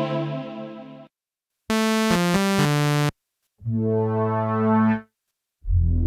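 Martinic AX73 software synthesizer, an emulation of the 1986 Akai AX73 analog polysynth, playing short preset demos separated by brief silences: a held chord fading away, then a bright phrase of quick changing notes, another held chord, and a new bass-heavy chord starting near the end.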